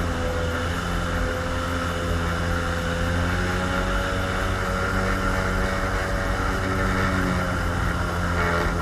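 Engine of a small watercraft running steadily under way, its pitch wavering slightly.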